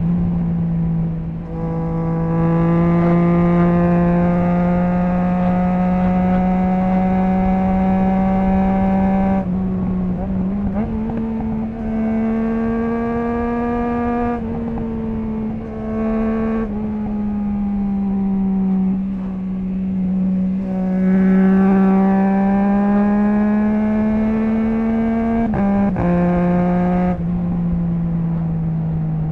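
Triumph Trident 660's inline three-cylinder engine through a baffle-less Zard stainless full exhaust, running hard under way on a motorcycle. Its note rises and falls with engine speed and jumps abruptly in pitch several times as it shifts gears through the quickshifter and auto-blipper.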